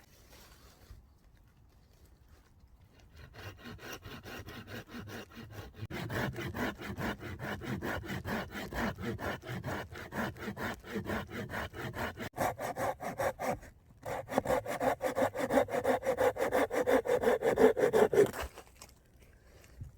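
Hand saw cutting through wood in rhythmic back-and-forth strokes, starting a few seconds in, with a short pause about two-thirds of the way through, then louder strokes before it stops near the end.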